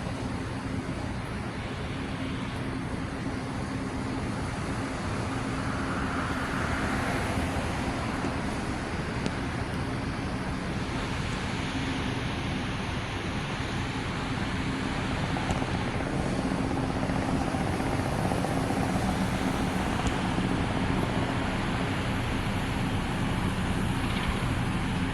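Robinson R44 helicopter flying past: a steady drone of its rotor and piston engine that grows slightly louder in the second half.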